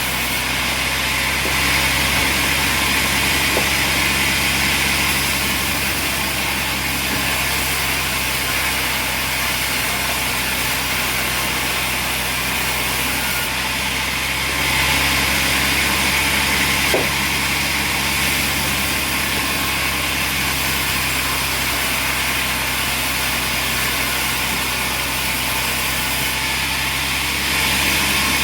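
Sawmill machinery running steadily: an engine-like drone with a hiss over it, growing a little louder for a few seconds now and then, with one sharp click about halfway through.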